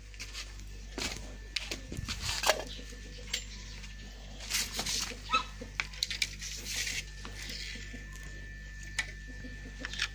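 Irregular clicks, taps and light knocks of an old spinning rod and its parts being handled, over a steady low hum.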